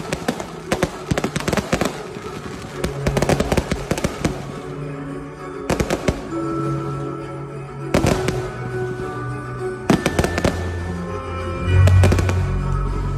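Aerial fireworks bursting overhead in quick clusters of bangs and crackles. Under them, music plays with held notes and a deep bass that swells near the end.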